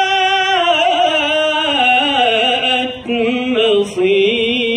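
A man's solo voice reciting the Quran in the melodic tajwid style. He holds one long, ornamented note whose pitch wavers and sinks, pauses briefly for breath about three seconds in, then begins the next phrase in the same chanted line.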